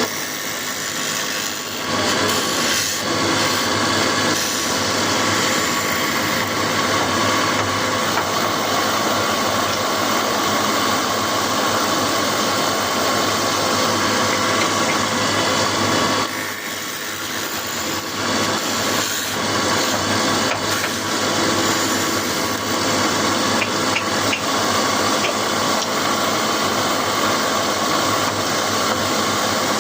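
Woodworking machine running steadily while it cuts and shapes wooden rolling-pin handles, a continuous motor drone with scraping cutting noise. It eases off briefly at the start and again just past halfway.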